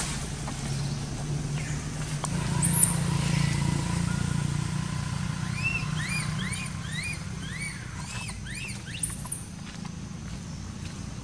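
Baby macaque crying: a run of short, rising-and-falling squeals, about ten of them, starting around the middle and stopping near the end. A steady low hum lies underneath.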